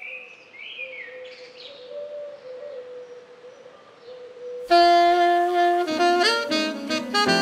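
Faint bird chirps over a steady low tone, then about four and a half seconds in loud jazz starts suddenly, a saxophone carrying the melody.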